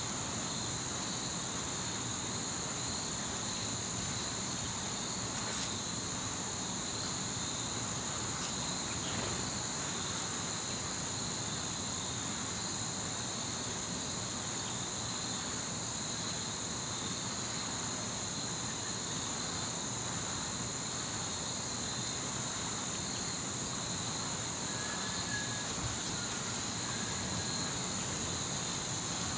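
Crickets trilling steadily in the background, two continuous high-pitched trills layered together without pause.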